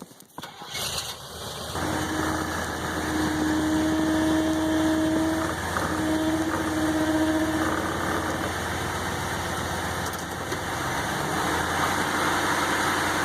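A pickup truck's engine starts and settles into a steady idle. A steady whine comes and goes over it twice.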